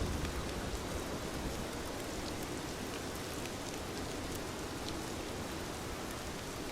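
Steady rain falling, a continuous even hiss with scattered individual drops ticking on a surface.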